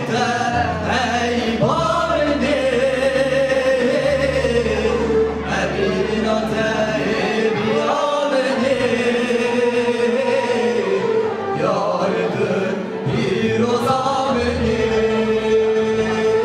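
A young man singing solo into a microphone in long, wavering held notes, over electronic keyboard accompaniment.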